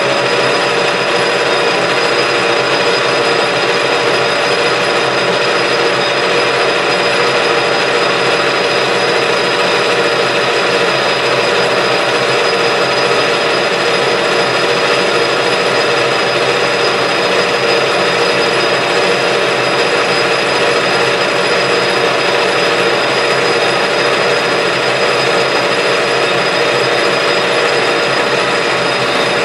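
Metal lathe running under power as its carbide turning tool takes the final finishing pass along a metal shaft. A steady machine hum with a few constant tones holds an even level throughout.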